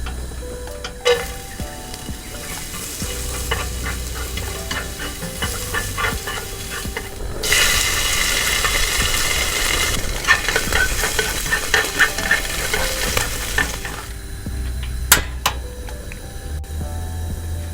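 Food sizzling in a hot frying pan as it is stirred, with many small clicks and scrapes of a utensil against the pan. The sizzling gets louder about seven seconds in and drops away near fourteen seconds, followed by a single sharp knock.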